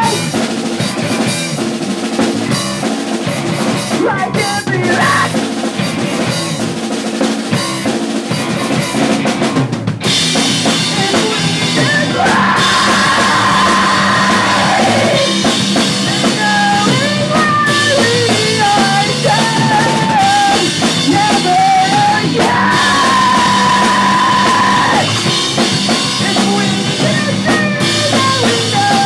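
Live pop punk band playing a song: drum kit pounding under a full band, with held sung or guitar lines rising and bending over it.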